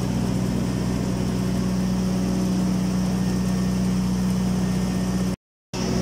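Heavy engine running steadily at one constant speed, a deep even hum, with a brief dropout near the end.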